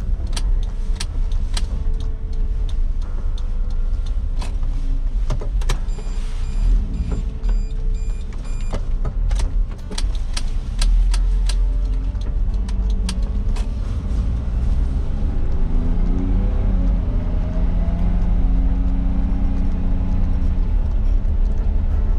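Inside the cab of a 1996 Suzuki Jimny JA22 during a U-turn: the small engine drones low and steady, with a regular ticking through the first ten seconds or so. From about fifteen seconds in, a rising whine builds as the engine picks up speed pulling away.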